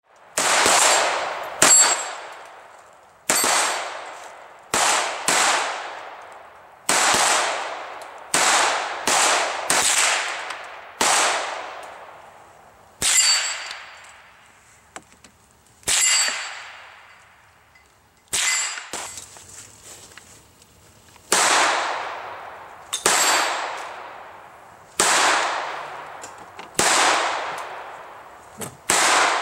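A Ruger SR22 .22 LR semi-automatic pistol fired in about twenty single shots, spaced half a second to three seconds apart. Each shot dies away in a long echo. Some shots are followed by a high metallic ring from a struck steel plate target.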